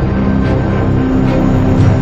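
Background music: sustained held tones over a dense, steady low bass.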